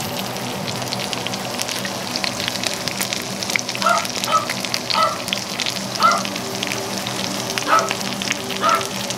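Pan-seared chicken pieces sizzling and crackling in their juices in a stainless skillet, a steady hiss with many small pops.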